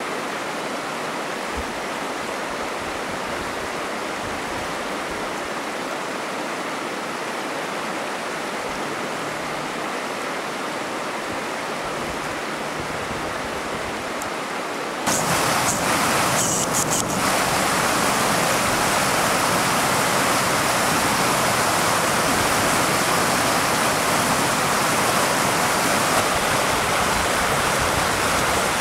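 Steady rushing noise of a snowstorm outdoors, with no clear pitch; it jumps louder about halfway through, with a few brief knocks, then holds steady.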